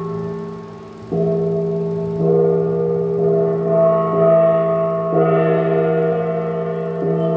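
Handheld flat metal gong struck with a padded mallet about once a second, each stroke ringing on with a deep, humming tone that carries into the next.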